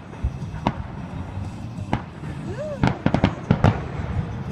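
Fireworks bursting: single bangs about a second and two seconds in, then a short rising-and-falling whistle followed by a quick volley of about six bangs near the end.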